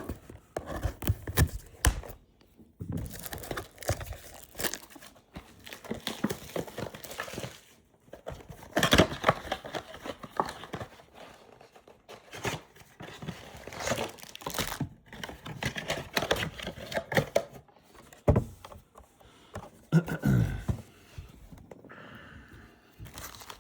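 Plastic wrapping of a trading-card box and its packs crinkling and tearing as they are opened, with scattered sharp clicks and knocks of the cardboard being handled.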